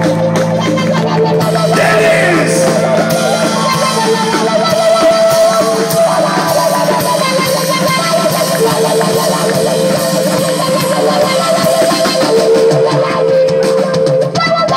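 Rock band playing live and loud, with electric guitar leading over a drum kit.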